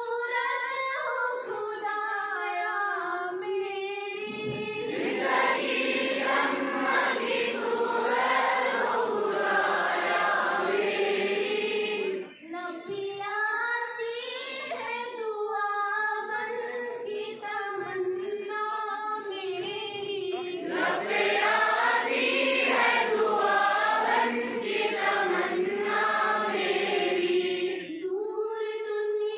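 Schoolchildren singing the morning assembly prayer together. A few clear leading voices alternate with the whole assembly, which comes in louder about five seconds in and again about twenty-one seconds in.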